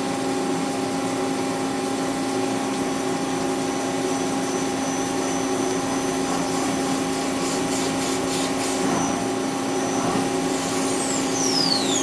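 CNC lathe running with coolant flowing while a parting tool cuts the finished knob off the bar stock: a steady machine hum with a thin high tone, and a falling whine near the end.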